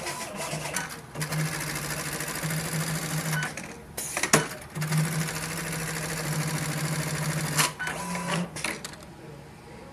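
Automatic pocket-setting sewing machine stitching a jeans back pocket through denim in fast, steady runs. It sews two long runs, with a pause and a sharp click between them, then a few short bursts before it stops near the end.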